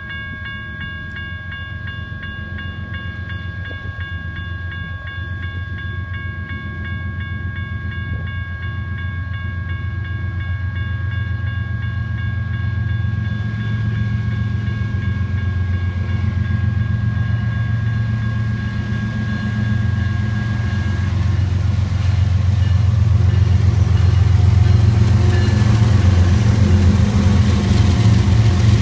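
BNSF freight train's lead diesel locomotive approaching, its low engine rumble and rail noise growing steadily louder. A grade-crossing bell rings steadily over it and fades out about two-thirds of the way through.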